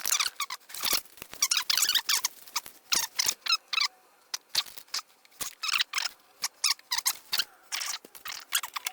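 Duct tape being pulled off the roll in many short, irregular, squeaky rips.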